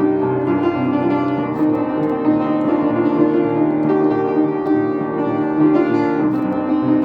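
Instrumental classical music with piano prominent, sustained notes held in a steady, unbroken flow.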